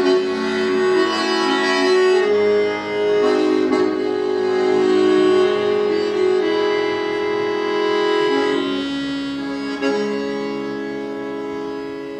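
Bayan (Russian chromatic button accordion) playing a solo tune in held chords that change every second or so over a steady low note.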